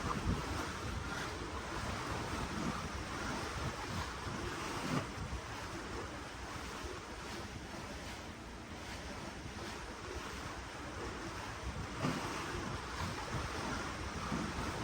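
Ocean water washing and rushing steadily, with gusting wind buffeting the microphone in low rumbles.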